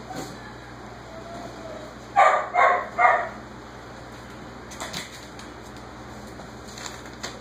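A whippet barking three times in quick succession: its way of announcing that it has finished its dinner.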